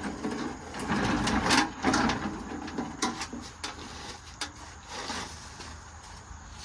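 Irregular knocks, clicks and scuffs of someone moving about and handling things in a workshop, busiest in the first few seconds and dying down after about five seconds.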